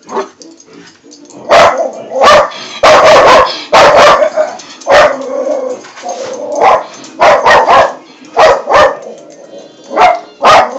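Dog barking repeatedly: about a dozen loud barks at irregular spacing, starting about a second and a half in. This is fearful barking at an umbrella.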